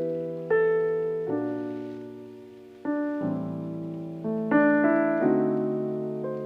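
Keyboard playing a slow run of sustained chords alone, a new chord struck about every second and each fading away before the next.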